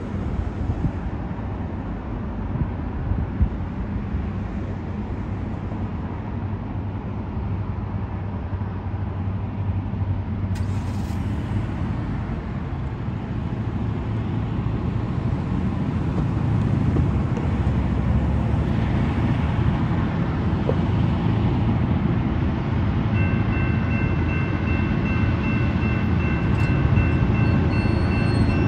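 Diesel freight locomotives rumbling steadily as the train approaches, growing louder about halfway through. A few steady high-pitched tones join near the end.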